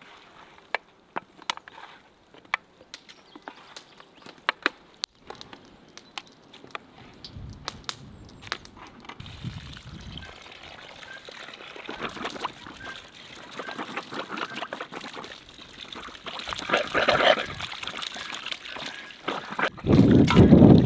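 Light clicks and knocks as raw guinea fowl pieces are handled on a metal tray, then water from a garden tap pouring into a plastic basin, growing louder. Near the end the water splashes loudly as meat is rinsed under the tap over a metal colander.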